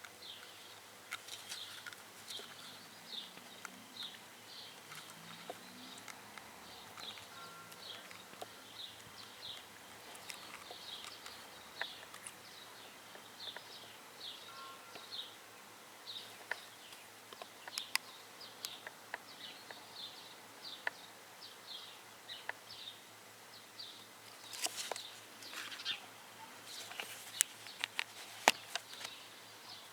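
Small birds chirping over and over in short, high notes, about two or three a second, with scattered sharp clicks and knocks that grow more frequent and louder near the end.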